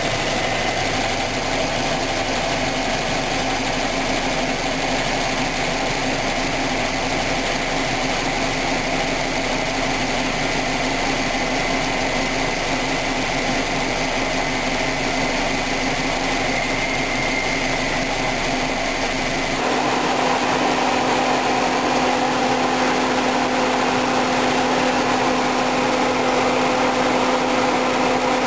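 Hyundai Tucson running with the air conditioning on: a steady mechanical drone and whine. About twenty seconds in, the sound steps up louder and a new steady low hum sets in. The owner wonders whether it comes from an AC system overcharged with R134a refrigerant or from a dying compressor.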